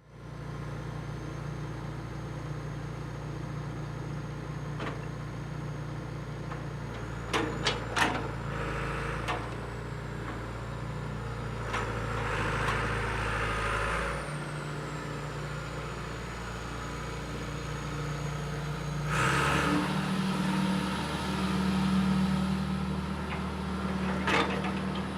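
1996 John Deere 490E excavator's diesel engine running steadily at idle, then speeding up to a higher, louder pitch about three-quarters of the way through. Along the way there are a few sharp clicks and short bursts of hiss over a faint high whine.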